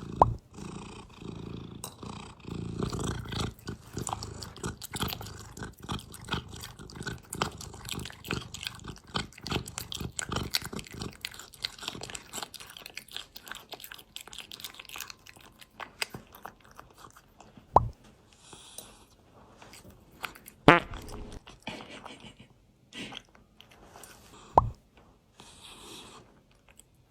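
A cat eating, with rapid crunching and chewing for about twelve seconds that then thins to scattered bites. Three sharp knocks stand out in the second half.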